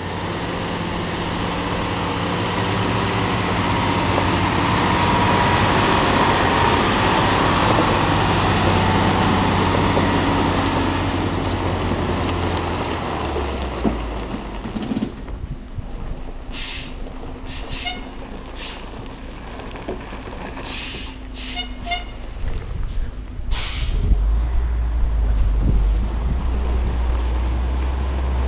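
Heavy loaded truck's diesel engine labouring as it climbs a steep gravel hairpin close by, loudest in the first half. It eases off somewhat, then comes back strongly near the end. In between, about eight short sharp bursts of sound ride over the engine.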